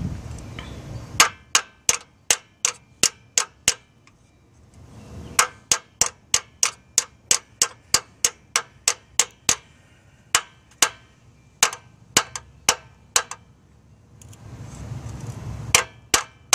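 Hammer tapping on the end of a steel screwdriver, in sharp metallic blows about two to three a second, in three runs with short pauses between, driving a new external clutch slave cylinder home onto its mounting prongs.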